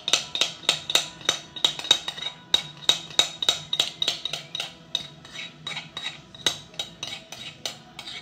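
A metal utensil beating in a mixing bowl, striking its side in a steady rhythm of ringing clinks, about three to four a second, a little softer in the second half.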